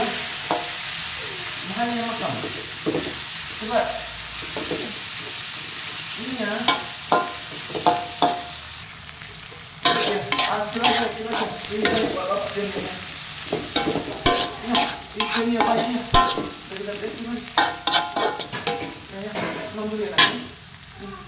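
Metal spatula scraping and knocking against a wok in irregular strokes while chili paste and petai beans fry in oil with a steady sizzle. The stirring gets louder about halfway through.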